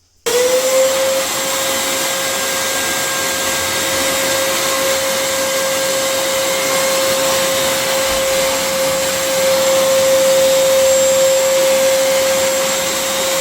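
Eureka Forbes canister vacuum cleaner switched on and running at full suction. Its motor spins up with a short rising whine about a quarter second in, then holds a steady high whine over the rush of air.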